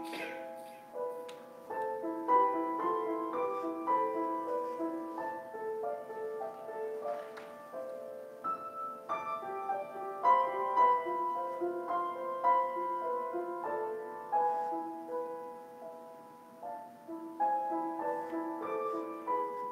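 Upright piano played solo: a steady stream of single notes and chords, each struck and left to ring and fade.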